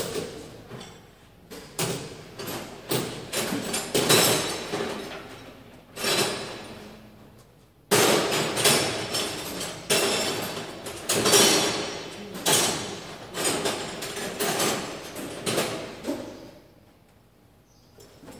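Metal being hammered: a run of irregular sharp blows, each with a short ringing tail, with a pause of about two seconds partway through. The blows stop a couple of seconds before the end.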